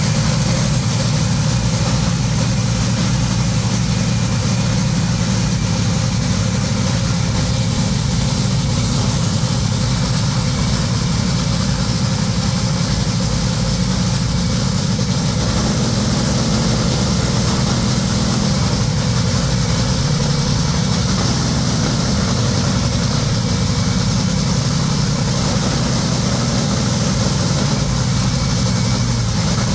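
Top Fuel dragster's supercharged, nitromethane-burning Hemi V8 running at idle in a pre-race warm-up, loud and steady with no revving.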